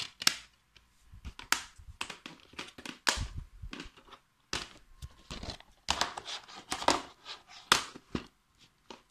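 Plastic DVD and Video CD cases being handled: a disc pressed into its case, then the cases shifted and set down on the table, giving irregular clicks, knocks and rattles with short gaps between them.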